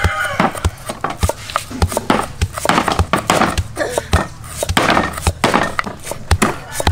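Stone pestle pounding chopped herbs in a stone mortar with a steady rhythm of dull thuds, mixed with the sharper knocks of cleavers chopping on wooden chopping blocks.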